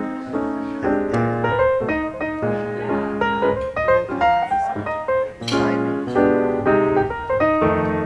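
Solo piano music, a steady run of notes.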